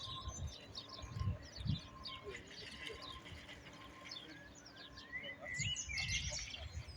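Several small birds chirping and singing, with many short high chirps and a rising whistled phrase about five seconds in. Low rumbles come and go underneath, the loudest near the end.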